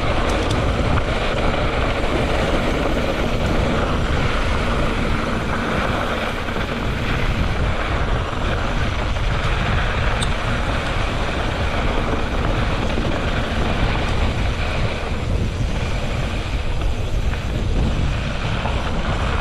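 Mountain bike descending a loose volcanic gravel trail: steady noise of tyres rolling over the grit, mixed with wind rushing over the camera microphone.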